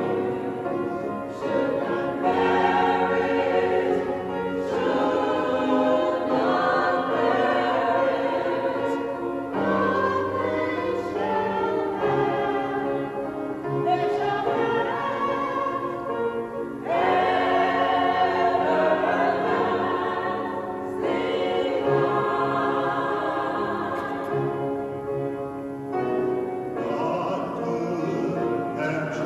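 Choir singing a slow hymn in sustained phrases over a steady instrumental accompaniment.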